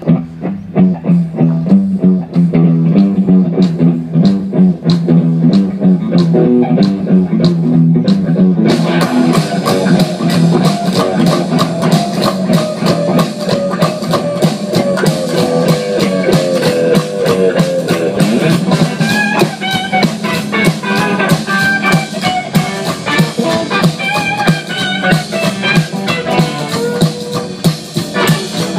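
Instrumental intro of a blues-rock song. Guitar plays a steady rhythmic figure alone at first, and a full band with drum kit comes in about nine seconds in.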